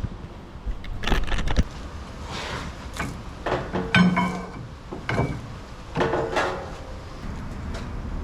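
Metal clanks and knocks from tools and axle parts being handled, several of them ringing briefly. A steady low rumble sets in near the end.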